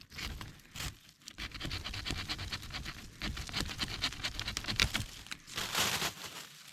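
Small multitool saw blade sawing into a tree with quick, short back-and-forth strokes, with a louder stroke near the end; the wood is not dry, so the blade cuts slowly.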